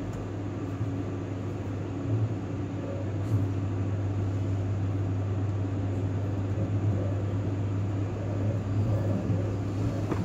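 Cabin noise inside a moving Union Pearson Express diesel multiple-unit train: a steady low hum over even running noise from the wheels on the track, with a couple of brief bumps a few seconds in.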